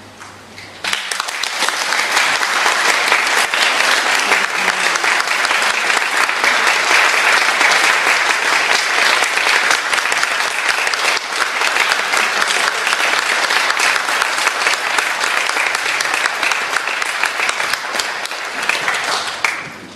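The last low notes of a pedal harp ring out, then an audience applauds from about a second in, the clapping dying away near the end.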